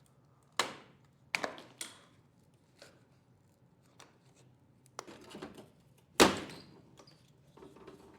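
A series of sharp knocks and clicks from hand work on a pickup truck's cowl and windshield trim. Three come close together in the first two seconds, a short scraping rattle follows around five seconds, and the loudest knock comes just after six seconds.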